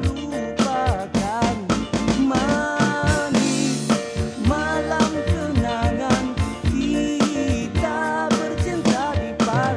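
A Malay pop song played by a band, with a steady drum-kit beat under a sung melody.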